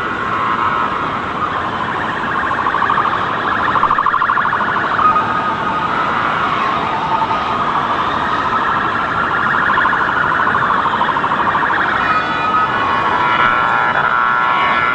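Several emergency-vehicle sirens wailing at once, their pitches rising and falling slowly and overlapping, over steady street noise.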